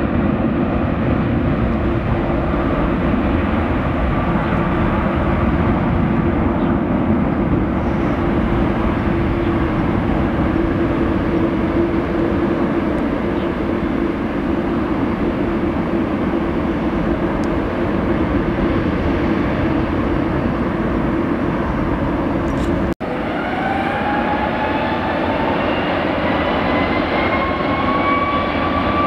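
Cathay Pacific Airbus A330 jet airliner at takeoff power, a loud steady jet roar. After a brief break near the end, a rising whine as another A330's engines spool up for its takeoff roll.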